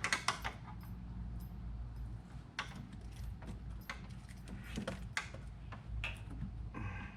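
Scattered metallic clicks and clinks of hand work, tools and a hose clamp being handled, with a cluster of clinks at the start, over a steady low hum.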